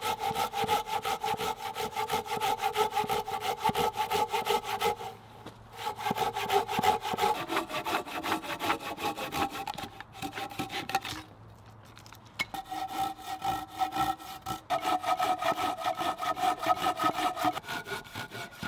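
Hand saw cutting across a log with fast, even back-and-forth strokes, the blade giving a ringing tone under the rasp of the teeth. Its pitch shifts as the cut goes on. The sawing stops briefly about five seconds in and again for about two seconds near the middle.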